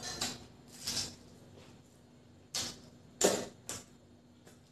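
Hand-eating rice and chicken curry from a stainless steel plate: fingers mixing the rice, then a handful taken to the mouth, heard as about five short, soft sounds with pauses between.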